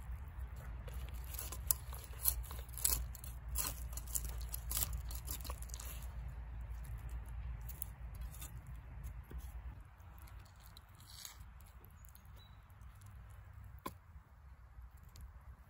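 Chef's knife scraping and cutting along the skin and fins of a stone bass on a wooden cutting board: a quick run of short rasping strokes, thick for the first six seconds or so, then sparser and softer.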